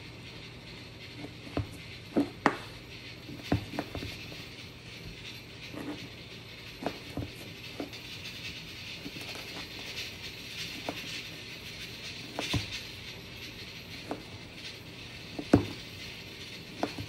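Kitchen knife cutting through a baguette and fish cakes on a plastic cutting board: irregular taps and knocks of the blade striking the board, the loudest one near the end.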